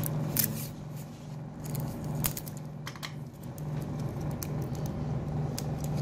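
Small clicks and rustles of heat-resistant tape being handled and pressed onto a phone circuit board, over a steady low hum.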